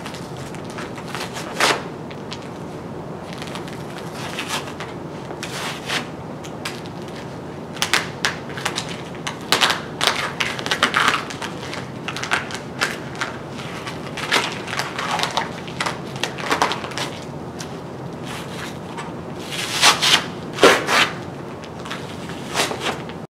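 Adhesive tape being handled: a paper release liner is peeled off and the tape is pressed and rubbed down onto foam. It comes as irregular short rustling and crackling bursts over a steady hiss, busiest near the middle and again near the end.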